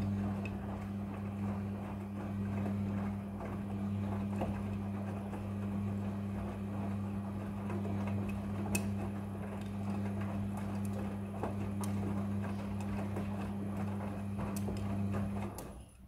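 Front-loading washing machine tumbling a wet load of clothes during the wash: a steady motor hum with water sloshing and small clicks and knocks of the load against the drum. The hum and sloshing stop suddenly shortly before the end as the drum comes to rest.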